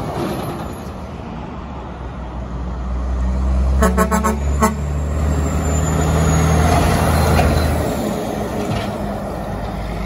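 An 18-wheeler's air horn blowing a quick run of short toots about four seconds in, while the truck's engine rumbles past, rising and then fading away near the end.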